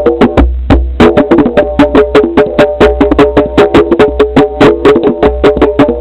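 Rhythmic percussion music: fast pitched strikes, about seven or eight a second, ringing in a few notes over a low steady drone.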